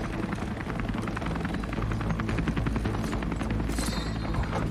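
Helicopter rotors running with a rapid, steady chop over a low, continuous drone.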